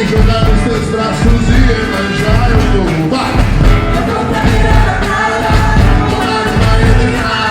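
Live performance by a carnival bloco band: drums and percussion keep a steady beat under melodic instruments and voices singing.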